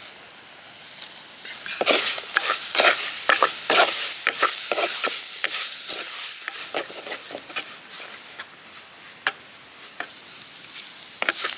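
A ladle stirring and scraping sliced onions, green chillies and spice paste frying in a clay pot, over a steady sizzle. The strokes come thick and fast from about two seconds in, then turn sparser.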